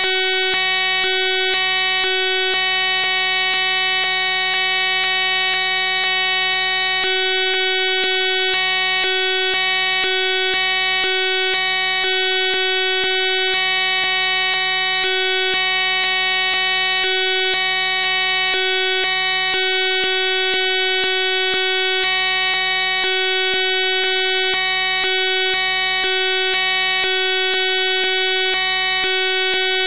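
Loud, steady electronic buzz made of many stacked tones, brightest and harshest up high, with a low hum underneath that cuts in and out irregularly. It is a corrupted or glitched audio track, not a real-world sound.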